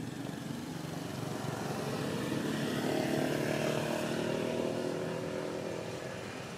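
A motor vehicle's engine passing by, swelling to its loudest about three seconds in and then fading.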